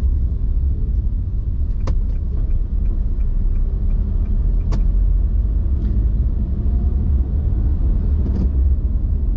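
Steady low rumble of a car driving, heard from inside the cabin. About two seconds in, a sharp click starts a turn signal ticking at about four ticks a second; it stops with another click a few seconds later.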